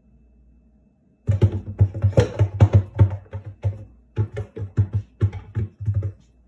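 A cat's paws rapidly batting and thumping against a wooden kitchen cabinet door: a quick, uneven run of knocks, about five a second, starting about a second in and stopping shortly before the end.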